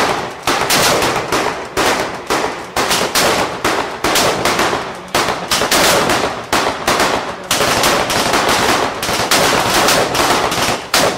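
Sustained, irregular gunfire from rifles and a machine gun in a firefight, about two to three shots a second, each sharp crack trailing off briefly.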